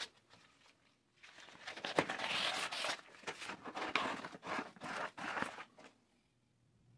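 Sandpaper rubbing against the cut end of a PVC pipe in a run of quick back-and-forth strokes, smoothing off its rough edges. The strokes start about a second in and stop near the end.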